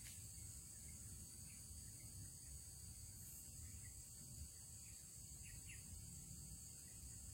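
Faint, steady high-pitched insect chorus, like crickets, over a low rumble.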